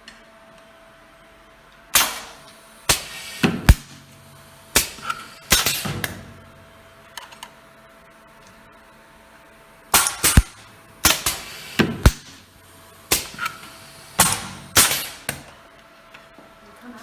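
Capacitor-discharge stud welder on an automated setup firing a run of welds: sharp cracks, several in quick succession, in two groups with a pause of about four seconds between them, over a faint steady hum.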